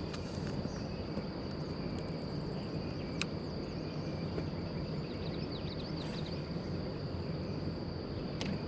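Outdoor ambience at a lakeside: insects keep up a steady high-pitched buzz over a low, even rushing noise. A single sharp click comes about three seconds in, and faint short chirps come in near the middle.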